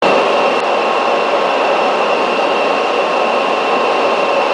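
Steady flight-deck noise of an MD-82 airliner in flight: an even, loud rush of airflow and air conditioning with a thin steady whine above it.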